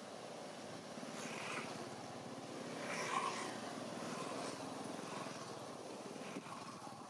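A motor vehicle's engine passing by, swelling to its loudest about three seconds in and then slowly fading.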